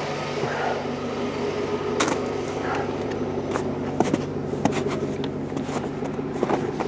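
Steady low hum of a 2004 Chevrolet Suburban running, with a few scattered light clicks and knocks.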